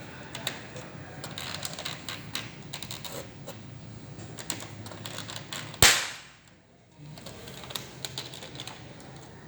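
Plastic PC casing being handled and pressed into place: irregular small clicks and taps, with one loud sharp snap about six seconds in.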